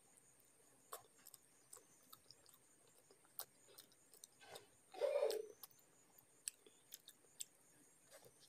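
Close-miked mouth sounds of a person eating chicken: scattered soft wet clicks and smacks of chewing, with one louder, longer mouth sound about five seconds in.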